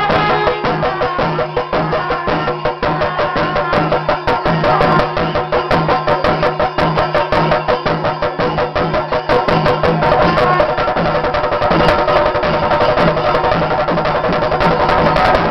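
Pandimelam, the Kerala temple ensemble: many chenda drums beaten with sticks in a fast, dense rhythm, with kombu horns sounding held notes over it.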